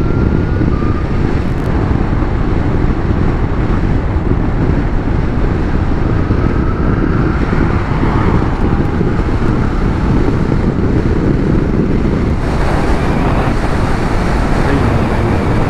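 Steady wind rush and road noise from riding a Zero SR/S electric motorcycle at road speed, with a faint whine rising in pitch near the start and again about halfway through as it speeds up. The hiss grows brighter about twelve seconds in.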